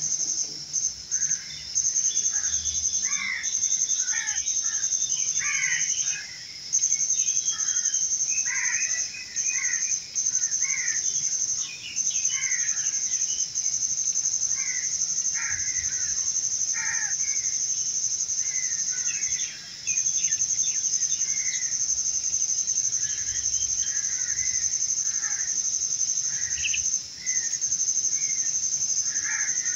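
Outdoor ambience of insects and birds: a steady, high-pitched insect drone that breaks off briefly a few times, under many short chirping and calling bird notes.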